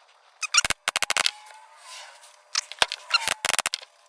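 Upholstery staple gun firing staples into a seat cushion's edge: runs of sharp clicks about half a second to one second in and again near the end, with a brief hiss about two seconds in.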